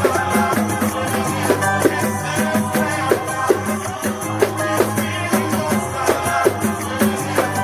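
Pandeiro played in a steady pagode groove over a pagode-style backing track, the frame drum's slaps and jingles falling in a regular rhythm with the music.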